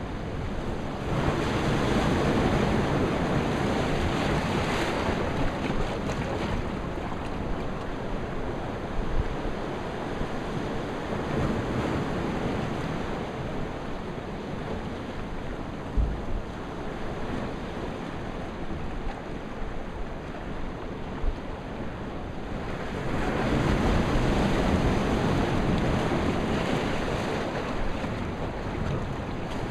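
Ocean surf surging in and washing over a rock outcrop: two louder waves, one about a second in and another near the end, over a steady wash of sea. Wind buffets the microphone throughout.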